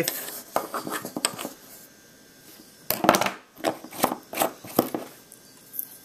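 Steel pocket-knife blade scraping and clinking against the inside of a glass salt shaker as it works the salt. A run of scrapes and clicks comes in the first second and a half, then a series of sharp taps from about three to five seconds in.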